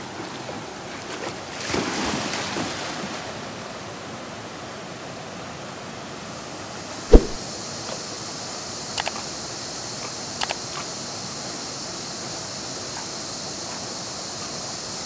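Steady rushing of a shallow river and small waterfall, with a surge of splashing about two seconds in as dogs wade through the water. A single sharp knock near the middle is the loudest sound, after which the water's hiss is brighter and steadier.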